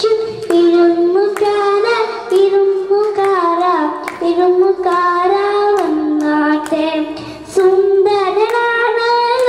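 A young girl singing a Malayalam children's song into a microphone, one voice carrying a melody in sung phrases with brief dips between them.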